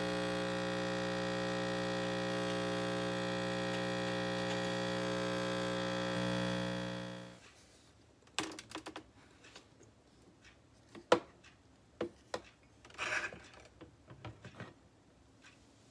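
A De'Longhi espresso machine's pump buzzing steadily as it pulls an espresso shot, then shutting off about seven seconds in. After that come a few sharp clicks and clunks as the portafilter is handled, the loudest about eleven seconds in.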